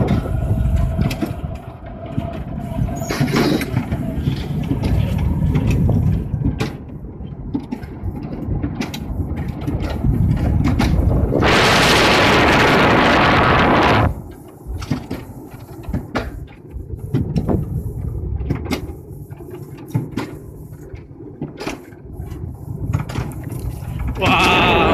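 Alpine coaster sled running down its tubular steel rails, its wheels rumbling steadily, with wind buffeting the microphone. A louder rush of noise lasts about two seconds near the middle.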